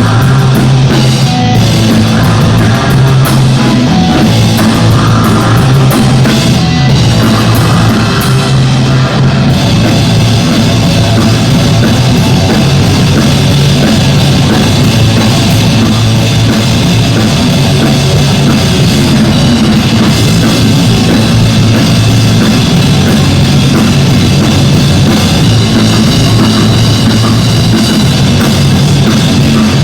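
A live band playing loud rock-style music over a driving drum kit, with a strong steady bass line and no singing.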